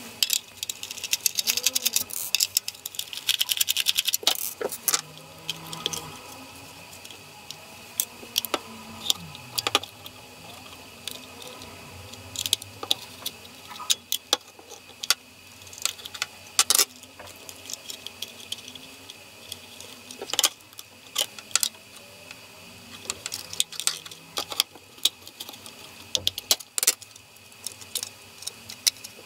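Plastic casing of a digital timer socket being handled and opened: irregular sharp clicks, scrapes and rattles of plastic parts as it is unscrewed and prised apart.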